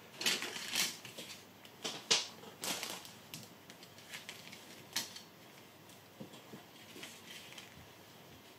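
Plastic model kit sprues clicking and rattling as they are handled and set down on a tabletop, with several light knocks in the first five seconds, then only faint handling.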